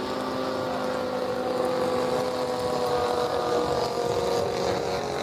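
Radio-controlled aerobatic model airplane's motor and propeller running with a steady buzz as it rolls along the grass after landing.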